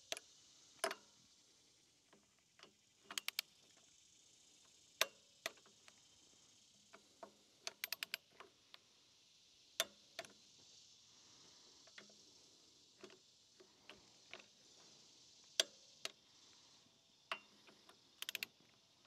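Click-type torque wrench on the cylinder head bolts of a Kohler engine, set to 15 foot-pounds. Sharp, scattered clicks come in quick runs of three or four as the wrench ratchets, with single clicks between them as it reaches the set torque.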